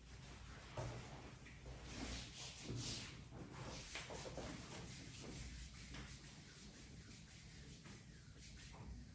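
Hands rubbing and stroking over skin during a deep-tissue sports massage: a faint brushing rub, with several louder strokes in the first few seconds that then ease off.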